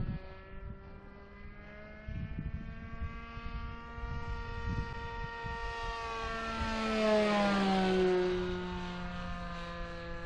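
Seagull Boomerang RC trainer plane flying, its motor and propeller a steady buzz that grows louder and drops in pitch as it passes close by about seven seconds in. Gusts of wind buffet the microphone.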